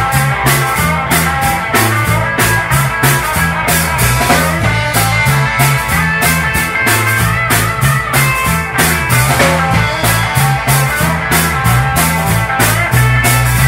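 Rock band playing with electric guitars, bass guitar and a drum kit keeping a steady beat.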